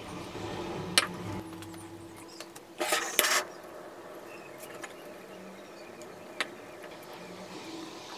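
Handling noises from a hatchet and a white block being moved on a wooden workbench: a sharp knock about a second in, a brief scraping rustle around three seconds in, and a lighter click later, over a faint steady hum.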